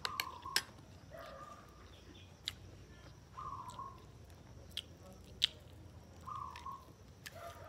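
Close-up chewing of rice and small dried fish, with scattered sharp clicks of eating. A bird calls a short note three times, about three seconds apart.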